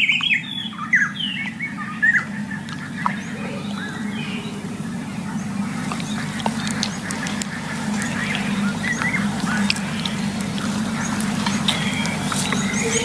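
Birds chirping and squawking, thickest in the first few seconds and then thinning to scattered calls and small clicks, over a steady low hum.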